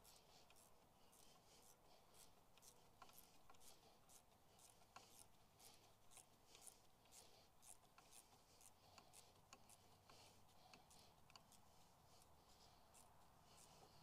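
Faint clicking of a hand ratchet, a few clicks a second, as the brake caliper bolts are run in.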